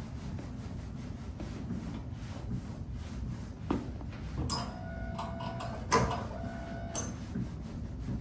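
Hands working on a client's body during manual therapy massage: a steady low rubbing, with a few sharp knocks and short squeaks in the middle, the loudest knock about six seconds in.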